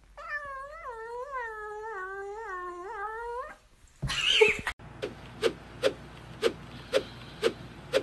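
A cat's long, wavering meow lasting about three and a half seconds, then a short louder cry. After that, a cat kneading with its front paws makes a short squeaky click about twice a second.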